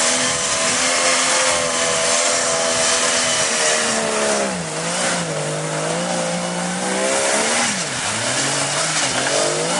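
Off-road 4x4's engine revving hard, holding its revs, then dropping about halfway through, dipping once more near the end and climbing back up.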